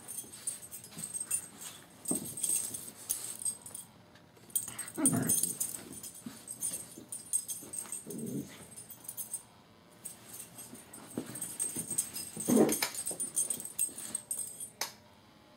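Boxer puppy scuffling and scrabbling as it shoves a pillow about, with many scratchy rubbing and clicking noises. A few short dog vocal sounds come through, the loudest about five seconds in and again near twelve and a half seconds.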